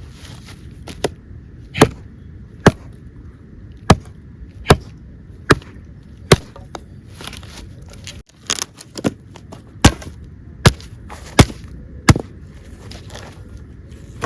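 Firewood being chopped: a series of sharp wooden strikes, about one every 0.8 s, with a short pause partway through.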